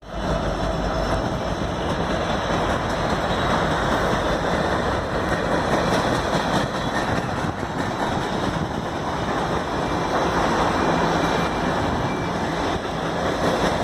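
Norfolk Southern freight train rolling past, a steady rumble of its wheels on the rails.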